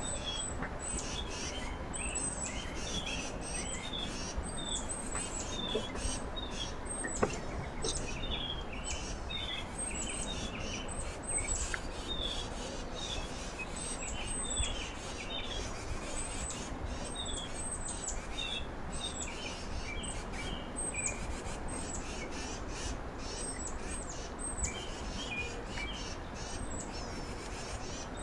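Small songbirds chirping around a backyard feeder: short, high-pitched chirps repeating one or two a second, over a steady outdoor hiss.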